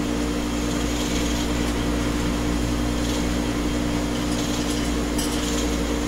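Steady whirring hum of a pellet stove's blowers and a small electric heater running together, with a constant low tone and an even hiss.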